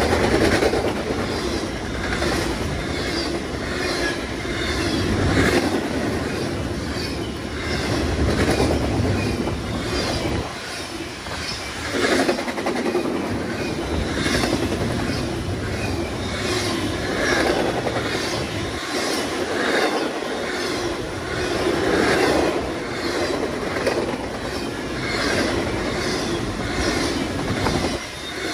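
Double-stack container freight train passing close by, its wagon wheels clattering over the rail joints in a fast, steady rhythm.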